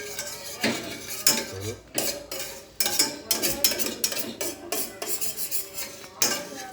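A spoon stirring in a cooking pot, clinking and scraping against it in quick irregular strokes, as palm sugar dissolves into ginger juice being cooked.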